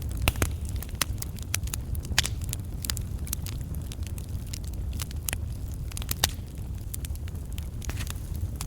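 Wood campfire burning, with logs crackling and popping in many sharp, irregular snaps over a steady low rumble of the flames.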